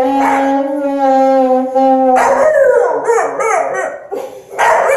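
An alto saxophone holds one steady note for about two seconds while a dog howls along. After the note stops, the dog keeps howling in rising and falling wavering arcs, with a short break and then a fresh howl near the end.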